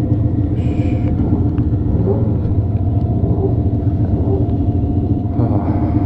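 Motorcycle engine idling steadily with a deep, even rumble.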